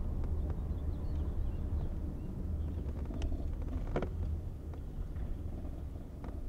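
Car driving, heard from inside the cabin: a steady low rumble of engine and road noise, with a few light clicks and a short knock about four seconds in.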